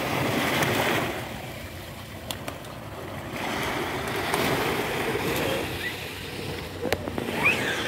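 Small waves washing onto a sandy beach, swelling and easing off twice.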